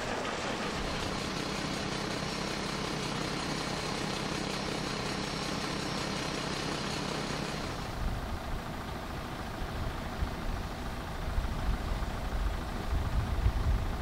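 Mobile crushing-and-screening plant running: a steady diesel engine hum under the hiss and rattle of crushed aggregate pouring off its conveyor onto a stockpile. About eight seconds in this gives way to an uneven low rumble.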